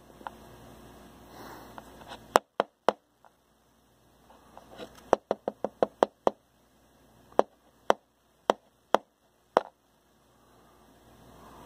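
A series of sharp taps: three in quick succession about two and a half seconds in, a fast run of about seven around five to six seconds in, then five more spaced roughly half a second apart.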